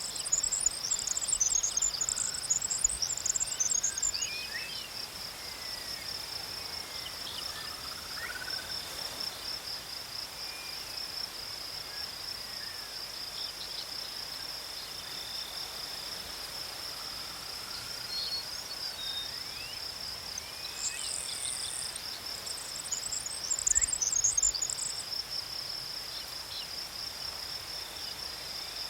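Insect chorus of crickets: a steady, finely pulsing high trill throughout. Bursts of faster, higher chirping come in at the start and again about twenty seconds in, with a few faint short rising whistles beneath.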